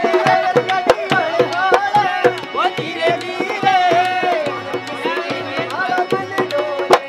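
Dholak hand drum played in a quick, steady rhythm, with a high, wavering, gliding melodic line over it.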